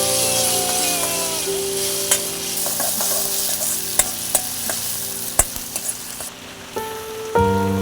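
Food frying in hot oil in a pan, sizzling, while a spatula stirs it, with a handful of sharp clicks of the utensil against the pan. The sizzle eases a little about six seconds in.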